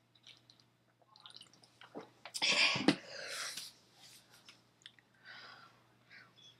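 A person drinking from a can: small swallowing and mouth sounds, then a loud breath out after the swallow about two and a half seconds in, ending in a short knock, followed by softer breaths.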